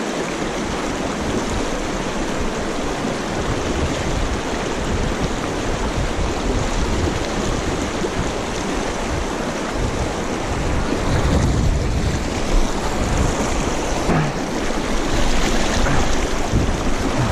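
Fast river current rushing and breaking over boulders, a steady full roar of water, with deeper rumbling coming in after about ten seconds.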